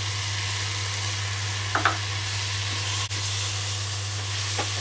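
Ginger-garlic paste sizzling in hot oil and ghee with fried onions in an aluminium pressure cooker, stirred in with a wooden spatula that scrapes the pan a couple of times. A steady low hum runs underneath.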